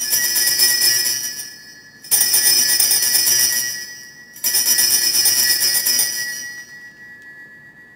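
Altar bells (Sanctus bells) shaken three times, each peal a bright jingle that fades before the next, with a ringing tone lingering after the last. They are rung at the elevation of the chalice at the consecration.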